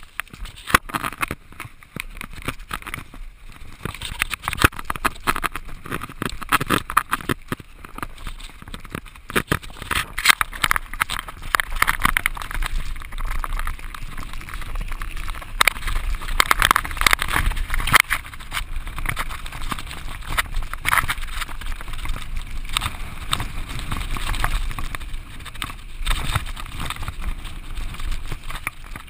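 Mountain bike ridden fast down a rough dirt singletrack: constant irregular rattling and knocking as the bike jolts over bumps and stones, with tyre noise on the dirt and a low rumble, heard through a GoPro carried by the rider.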